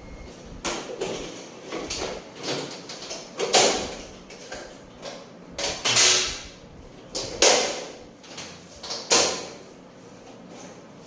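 Irregular knocks, clacks and short scrapes of hard objects being handled, about a dozen in all, some with a brief sliding tail.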